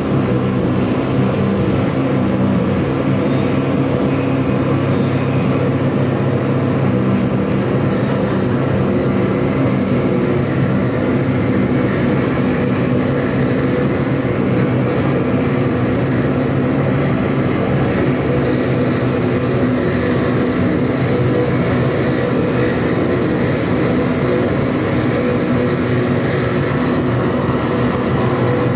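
Live electronic noise-music performance: a loud, dense wall of droning noise with many steady low tones layered through it, holding at an even level without breaks.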